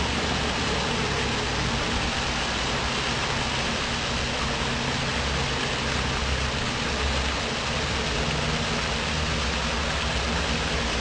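Steady outdoor background noise: an even hiss with a low rumble and faint hum underneath, with no distinct events.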